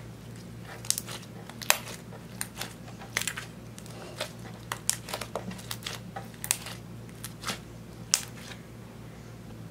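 Hands kneading and squeezing a lump of glossy slime mixed with eyeshadow, giving irregular sharp clicks and pops as air pockets in it burst.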